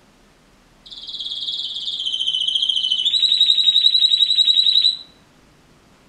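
Red-factor canary singing one song phrase: a high rapid trill that grows louder, dropping about three seconds in to a lower, louder trill that stops suddenly about two seconds later.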